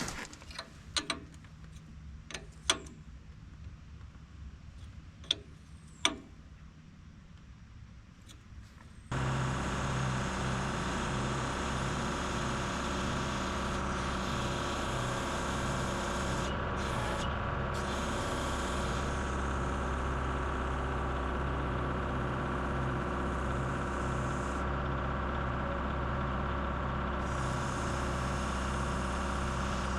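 A few sharp clicks or knocks in a quiet spell, then about nine seconds in the Kubota M62 tractor's diesel engine comes in suddenly, running steadily with a pulsing low hum.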